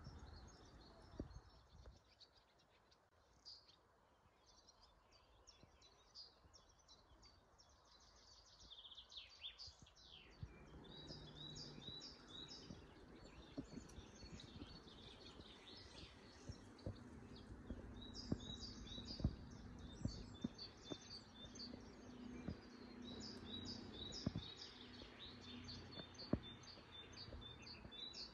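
Quiet birdsong: many small birds chirping and twittering, busier in the second half. A faint low steady hum comes in about a third of the way through.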